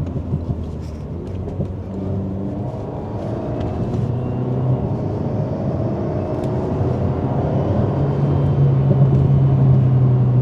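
Alpine A110's 1.8-litre turbocharged four-cylinder engine pulling in sports mode, its note rising in pitch and growing louder through the run.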